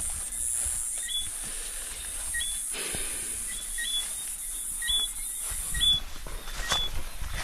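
Night-time chorus of small animals: short high chirps repeating about once a second over a steady high hiss. The hiss stops about six seconds in, and rustling and low rumbling from walking through grass follow.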